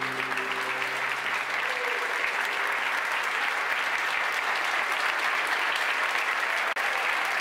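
Audience applauding at the end of a live song, steady throughout, while the last held notes of the music fade out in the first second or two.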